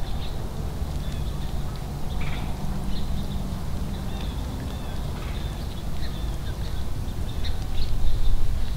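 Steady low rumble of wind on the microphone, with scattered faint, short high chirps of small birds.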